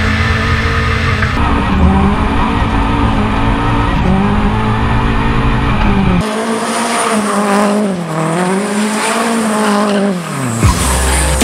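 A 2005 Subaru WRX STi's engine is held at high revs through donuts, with the tyres squealing and skidding as they spin on the asphalt. About six seconds in the sound is heard from inside the car's cabin, with the deep low end gone. The engine note dips and climbs back, then drops away near the end.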